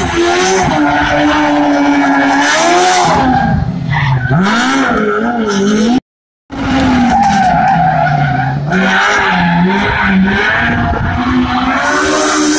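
Rally car engine revving hard, its pitch rising and falling as the car drifts through a tight roundabout turn, with tyres skidding. The sound cuts out completely for about half a second near the middle.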